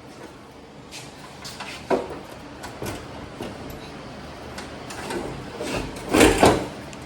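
Clunks, knocks and scraping of the S10 pickup's steel front body panels as they are lifted and moved. The loudest scrape comes about six seconds in.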